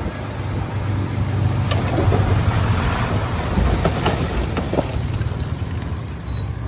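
Heavy diesel engine running steadily with a low drone, with a few short sharp cracks over it.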